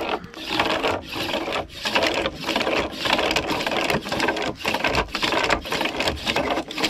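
Wooden friction fire set worked hard by hand: wood grinding on wood in fast, even rasping strokes, about one and a half a second, stopping abruptly at the end. A failing attempt to raise an ember, the worker tiring.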